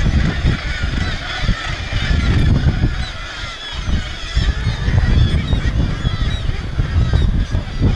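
Seabird breeding colony on sea cliffs: a dense chorus of many gulls screaming at once, calls overlapping continuously, over a low, uneven rumble.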